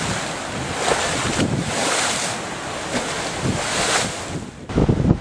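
Storm-driven waves breaking and splashing against a concrete seawall, the rushing surf rising in several surges, with wind buffeting the microphone. Near the end the surf drops away, leaving gusty wind rumble on the microphone.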